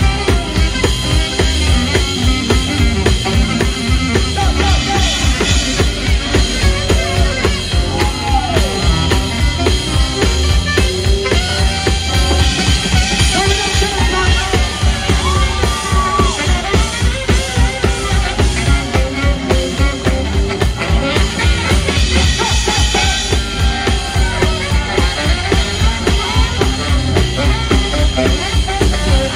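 Live swing band playing a number, the drum kit keeping a steady beat under a gliding melodic lead.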